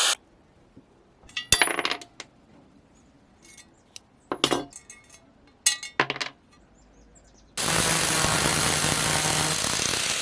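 Metal tools clinking and tapping against metal a few times, each with a brief ring. Then a loud steady hiss with a faint low hum for about three seconds, which stops abruptly.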